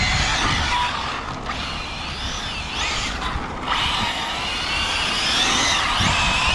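Brushless motor of an Arrma Felony 6S RC car whining as it is driven. The whine rises and falls in pitch several times with the throttle, climbing for a couple of seconds from about four seconds in, then dropping near the end, over a steady low rumble.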